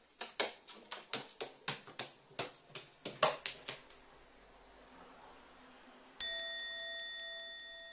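A quick run of about a dozen sharp clicks over the first few seconds. About six seconds in, a bell-like ding sounds and slowly fades.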